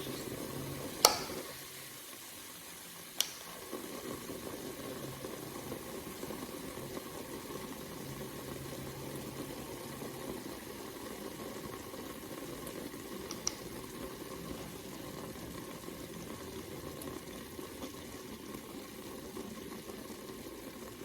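Steady bubbling sizzle from a Ninja Speedi cooking pork chops in steam-and-crisp mode, with the lid open. A couple of sharp clicks come in the first few seconds, and there is a short high blip about two-thirds of the way through.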